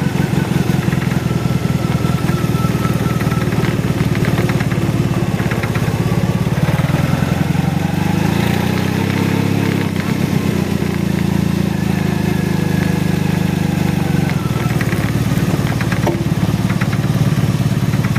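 Motorcycle engine running at low speed, heard close up from a camera mounted on the bike behind the windshield, with a rapid, even pulsing beat that shifts briefly around the middle.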